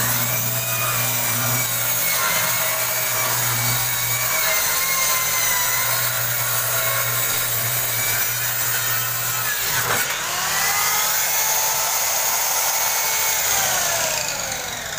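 Handheld corded circular saw cutting through a large wooden sheet: the motor starts suddenly, runs steadily through the cut, breaks off briefly about ten seconds in and starts again, then winds down with a falling whine near the end.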